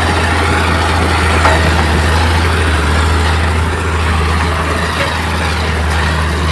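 Heavy diesel engine of earthmoving equipment running steadily, a deep even drone.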